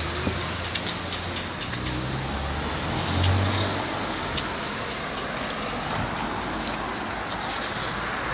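Steady motor-vehicle noise: an uneven low rumble in the first few seconds under a constant hiss, with a few faint clicks.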